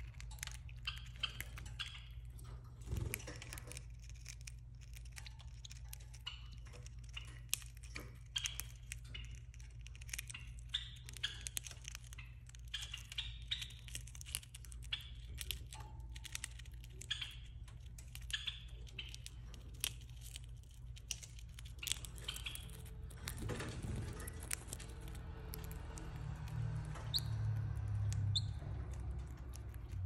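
Pacific parrotlet nibbling at a dried red chili pepper with its beak: irregular dry clicks and crackles, several a second at times, over a steady low hum.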